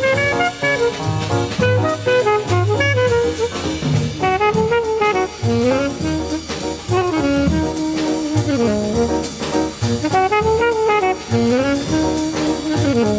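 Jazz music with a saxophone playing a flowing, bending melody over bass and drums.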